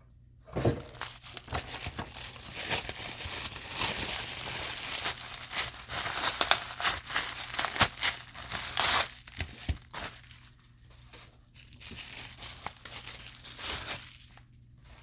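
Packaging crinkling and rustling as it is unwrapped by hand, with small clicks and tearing sounds. The handling is busiest over the first nine seconds or so, then quieter.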